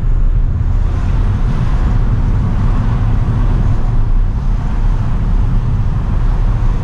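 Steady low rumble of road and engine noise heard inside the cabin of a Ford New Fiesta on the move.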